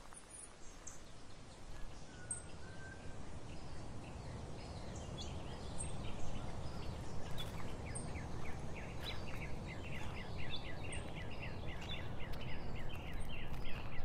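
Small birds chirping and calling in woodland over a steady low background hum of outdoor noise; the calls come thicker and faster in the second half.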